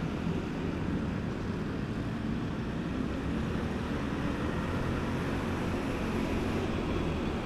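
Motor scooter engine running at a steady cruise, with wind and road noise rushing over the camera microphone.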